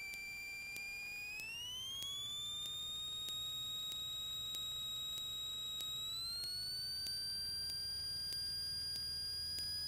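A steady high electronic whine on the cockpit intercom audio feed. It rises in pitch in two steps, about a second and a half in and again about six seconds in, as engine power comes up for takeoff. A faint low hum runs underneath.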